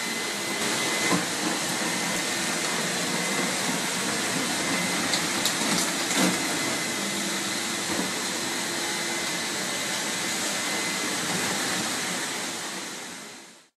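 Motorized floor-cleaning machine with a scrubbing pad running steadily, a continuous motor hum and hiss with a faint whine, fading out near the end.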